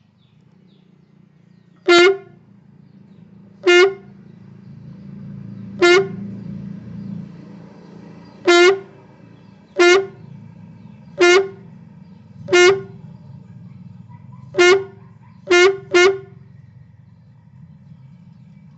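Short horn-like honks, ten in all at uneven spacing, the last two close together, over a steady low hum.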